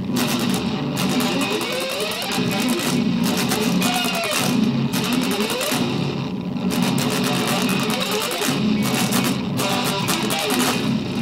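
Instrumental progressive metal: an extended-range electric guitar playing fast picked riffs, with sliding notes in places.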